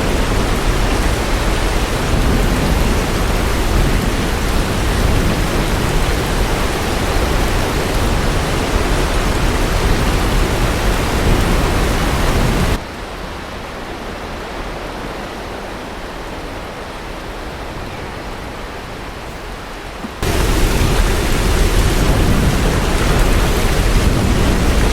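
Hurricane wind and heavy rain: a dense, steady rush of noise. It drops suddenly to a quieter rush about 13 seconds in and returns to full strength about 20 seconds in.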